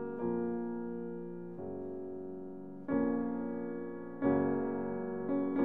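Piano music playing slow, sustained chords, with a new chord struck about every second and a half.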